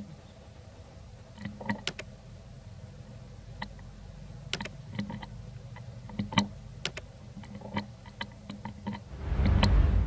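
Scattered sharp clicks and crackles, like dry leaves and grit under the macaques' hands and feet as they move on a leaf-strewn dirt path, over a low steady rumble. A louder low rumble swells for about a second near the end.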